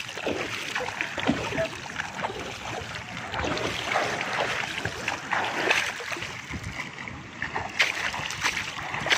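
Pool water splashing as a swimmer sweeps and throws it with his arms: a run of irregular splashes over a steady wash of moving water, with stronger surges about four, six and eight seconds in.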